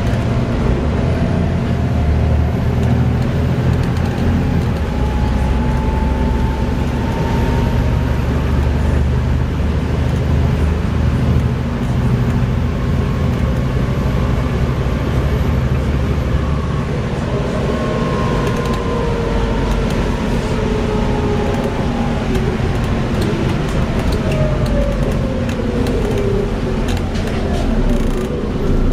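Volvo B7TL double-deck bus driving, its diesel engine and drivetrain running steadily, with a whine that climbs in pitch early on and falls away over the second half as the bus slows.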